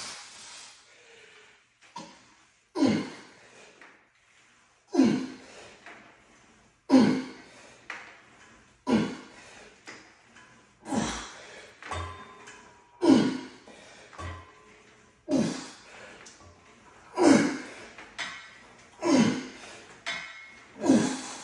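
A man breathing out hard through each rep of a cable shoulder fly, about one sharp voiced exhale every two seconds, ten in all. A few light knocks of the cable machine come in between.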